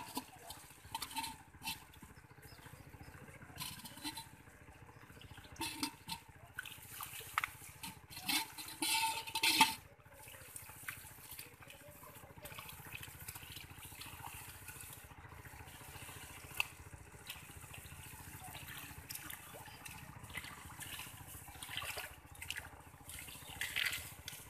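Hands splashing and sloshing in shallow muddy water as they grope through mud and weeds for fish, in irregular short splashes with a louder spell of sloshing about eight to ten seconds in.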